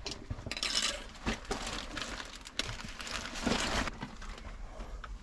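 Irregular rustling and scraping of a person clambering with a backpack through a tight passage, with a few sharp clicks and knocks.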